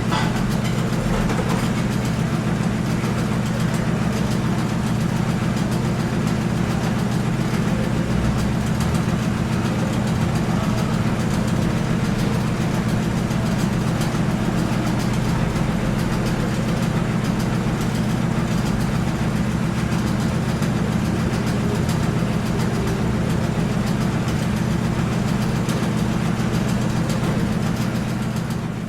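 A heavy engine running steadily at idle: a constant low drone that does not change.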